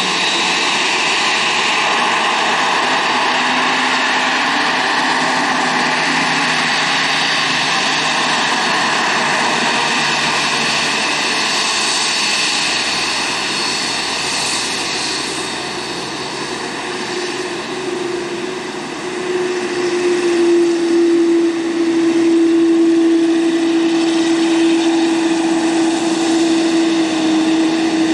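Boeing 787-8 jet engines at taxi power: a steady whine over a broad rush. About two-thirds of the way through a low steady hum comes in and the sound grows louder.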